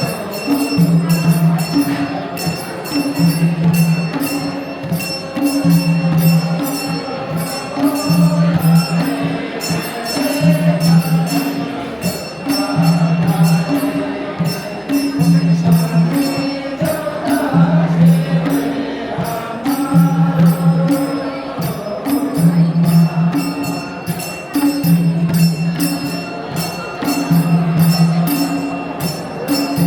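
Traditional Gurung dance music: a drum beating a pattern that repeats about every two and a half seconds, with steady jingling percussion and singing over it.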